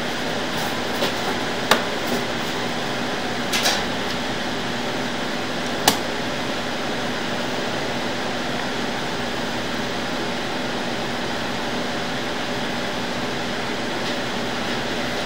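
Steady machine hum like a fan or ventilation unit, with a few short sharp clicks in the first six seconds.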